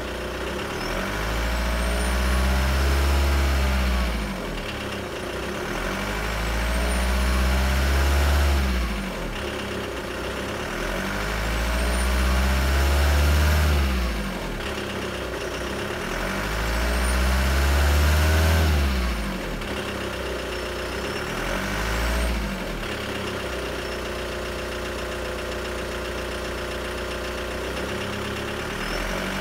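Turbocharged engine revved four times in slow swells, a high rising turbo whistle climbing over the revs, then settling to a steady idle for the last several seconds.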